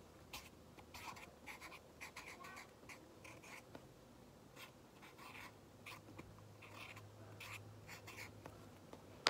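A marker writing a word on a drink cup: faint, short strokes of the tip in quick, irregular runs.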